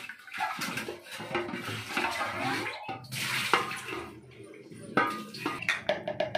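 Water splashing and sloshing inside a large aluminium cooking pot as it is rinsed by hand in a sink, with knocks of the metal pot, then the pot is tipped and emptied.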